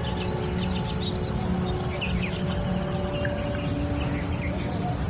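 Birds chirping in short scattered calls over a steady high-pitched insect drone, with a low rumble underneath.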